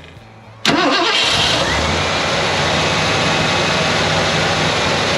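A 1987 Ford F-150's engine cranking and catching about a second in, then running steadily, started on its newly fitted fuel pump.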